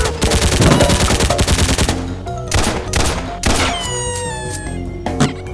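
A rapid rattle of gunfire-like shots for about the first two seconds, then music with a pitched tone sliding downward in the middle and a single sharp hit near the end.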